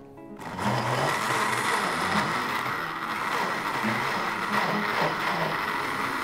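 Electric countertop blender starts up about half a second in and runs steadily, with a thin high whine over the churning. It is blending soaked canary seed, water and red berries into a plant milk.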